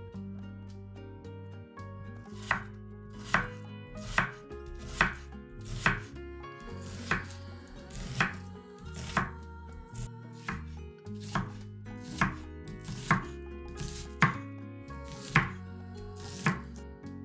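Chef's knife slicing onion on a bamboo cutting board, each cut ending in a sharp knock of the blade on the board, about once a second.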